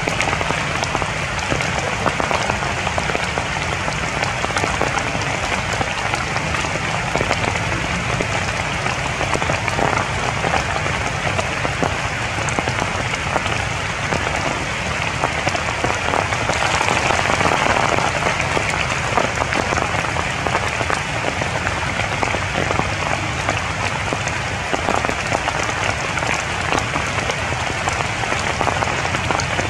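Steady rain pattering on tree leaves, a dense hiss of drops that grows a little heavier for a few seconds about halfway through.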